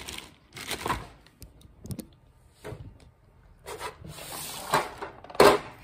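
Clear plastic zip bag rustling and crinkling as it is handled, with small plastic LEGO tires clicking against each other. There are short clicks and longer rustles, and the loudest rustle comes near the end.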